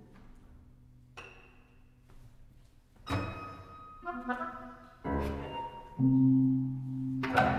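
Sparse contemporary chamber-ensemble music for solo oboe, winds, percussion, piano and strings. Separate sharp accents ring out of near quiet, and a sustained low chord enters about six seconds in.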